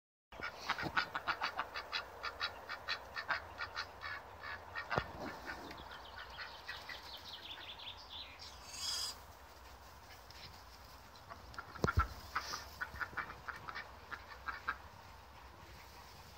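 White domestic ducks quacking in quick runs of short calls, about four a second, that fade after about seven seconds and pick up again later. A brief rustling burst comes about halfway through, and two sharp knocks are heard.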